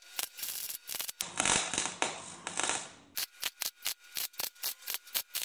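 MIG welder arc crackling as it welds the new steel front panel to the car's body. Irregular crackles give way to a steady sizzle for about two seconds, then short sharp bursts at an even rhythm of about five a second.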